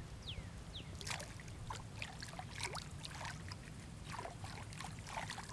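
Small, irregular splashes and drips of shallow pond water as a hand lets a sunfish go and dips into the water.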